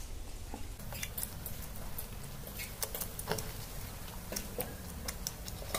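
A person chewing a fried semolina (suji) snack close to the microphone, with many scattered short, sharp crunches and mouth clicks.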